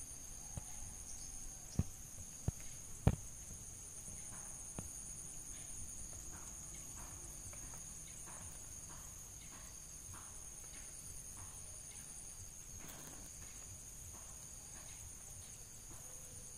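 Steady high-pitched trill of an insect chorus in the vegetation. Three sharp knocks come about two to three seconds in, with faint irregular ticks through the rest.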